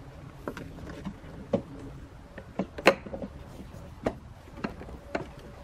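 Plastic tail light housing clicking and knocking as it is fitted and pressed by hand into place on the car body. About seven or eight separate short knocks, the loudest about three seconds in.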